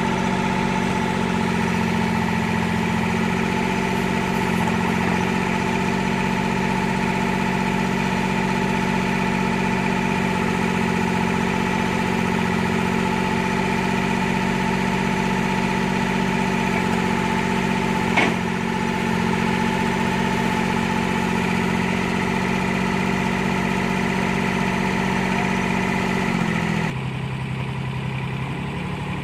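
Nissan N220 mini excavator's engine running steadily, with a single sharp knock about two-thirds of the way through. Near the end the engine note drops to a lower, quieter speed.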